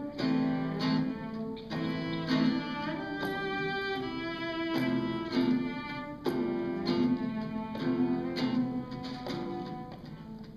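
Live acoustic band playing an instrumental introduction: acoustic guitar strumming chords at a steady pulse under a bowed string instrument holding sustained notes.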